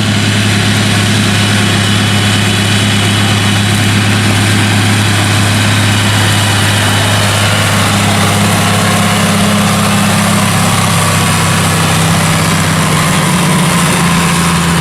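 Heavy diesel farm machinery running steadily at close range: a constant low engine hum with a hissing wash over it, the pitch shifting slightly about halfway through.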